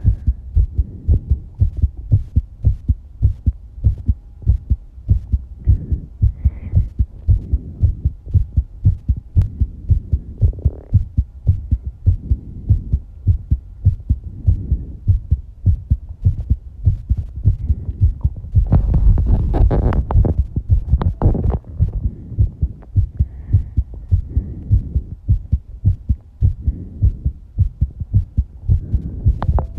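A fast human heartbeat after exercise: a rapid, even run of low thumps. A louder breath-like rush about twenty seconds in, from heavy breathing.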